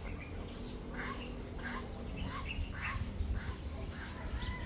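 Backyard poultry calling: a string of short calls, several a second, over a low rumble.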